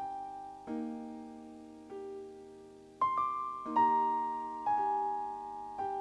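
Background piano music: slow notes and chords, each struck and left to ring and fade.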